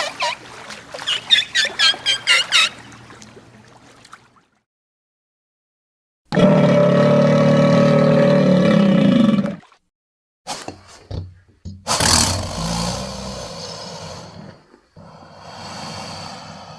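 A series of dinosaur roar sound effects separated by short silences. It opens with a rapid run of pulsing calls, and the loudest is a long, steady-pitched roar about six seconds in, followed by a few clicks and two more roars.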